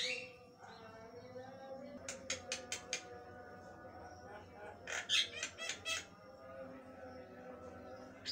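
Caged Javan myna calling: quick runs of sharp, clicking chattering notes about two seconds in, then a louder cluster of notes around five seconds in.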